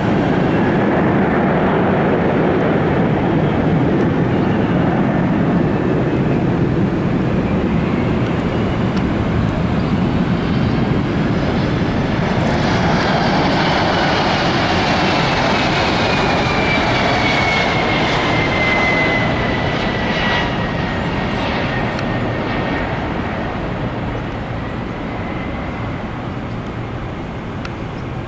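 Boeing 767-300 jet airliner on final approach passing close by: a loud, steady jet engine noise with a high whine that falls in pitch as the aircraft goes past, the noise then easing off as it moves away toward the runway.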